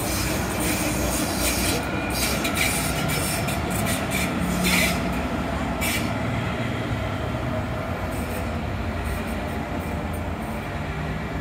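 Hamburg S-Bahn electric train rolling past below, a steady rumble of wheels on the rails. In the first half there are sharp clicks and brief squeals from the wheels.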